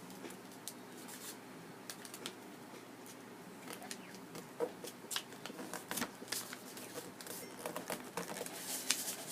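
Sheet of origami paper being folded by hand: soft rustling and crinkling with scattered small clicks as the flap is folded in to the middle and creased, busier in the second half.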